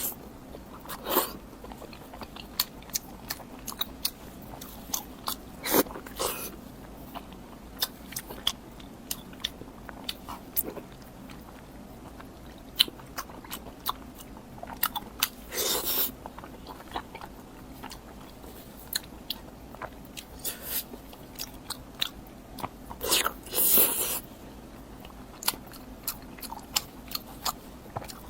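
Close-miked mukbang eating: a person biting and chewing crunchy food, with scattered sharp crunches and mouth clicks and a few longer, louder crunching bites.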